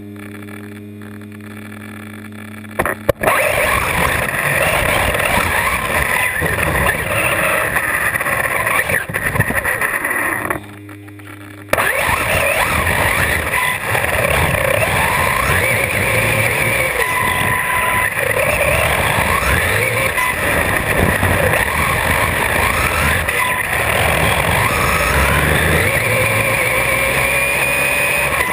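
Onboard sound of an electric RC car racing on a track: wind and tyre noise with the brushless motor's whine rising and falling as it speeds up and slows. The car sits with only a low steady hum for about the first three seconds, and again for about a second midway.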